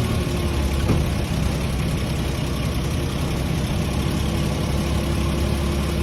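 Lexus IS300 engine idling steadily, with one faint short pop about a second in; the owner cannot say what causes the popping noise.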